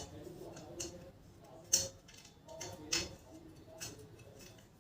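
A few sharp, irregularly spaced clicks and taps as a screw is tightened to join a metal rod to an elevated dog feeder stand.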